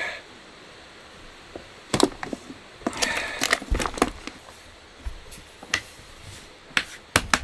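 Scattered clicks and knocks of dishes and utensils being handled, clustered about two to four seconds in, with two sharp clicks near the end.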